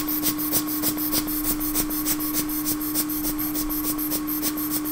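A reballed IC chip rubbed back and forth on a piece of paper in quick, even scrubbing strokes, about four a second, to clean it up. A steady hum runs underneath.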